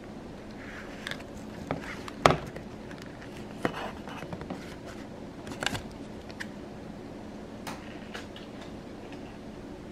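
Cardboard sweets box being handled and opened by hand: scattered scrapes, rustles and clicks, with a sharp knock about two seconds in and more knocks near four and six seconds. A faint steady low hum runs underneath.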